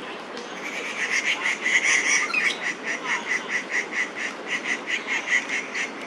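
An unseen animal giving a rapid series of short, even calls, about five a second, starting just under a second in and keeping on steadily.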